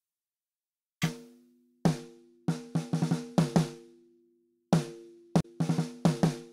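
Solo snare drum track playing back: after about a second of silence come single hits and quick runs of strokes, uneven in loudness, with some hits turned down to soft ghost notes. Each hit leaves a short pitched ring. This is a fixed-velocity, MIDI-rendered snare given a dynamics envelope with clip gain.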